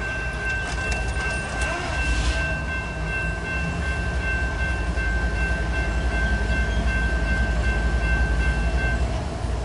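Grade-crossing warning bell ringing steadily as the gates lower, until about nine seconds in when the gates are down, over the low rumble of CSX diesel locomotives approaching slowly.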